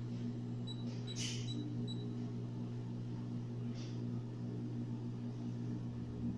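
E-Pex Pro electronic apex locator's audible alarm giving a short run of quick, high beeps, about four a second, starting under a second in and stopping about a second later, over a steady low hum. The beeps are the locator's sound guide to the endodontic file's position in the root canal.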